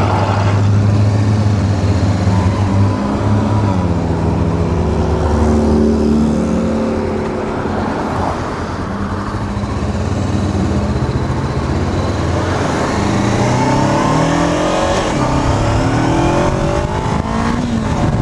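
Honda CBR500's parallel-twin engine running as the motorcycle rides on, with the revs climbing in several rising sweeps as it accelerates through the gears near the end, over road and wind noise.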